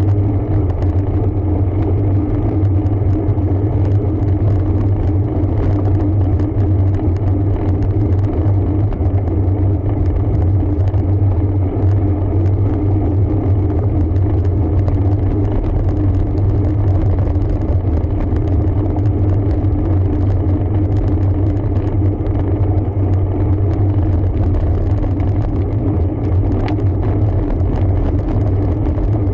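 Steady low rumble of riding noise from a road bike, unchanging in level throughout.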